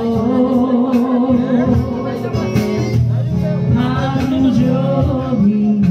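A man singing a Japanese pop song while accompanying himself on a strummed acoustic guitar.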